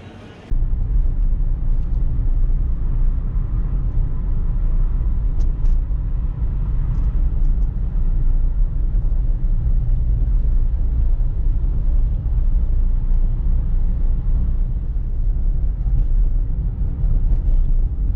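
Car driving, a steady low road rumble that starts abruptly about half a second in and holds level throughout.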